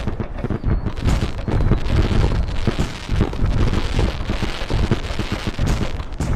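Fireworks going off in a dense, continuous barrage: many rapid booms and crackles overlapping.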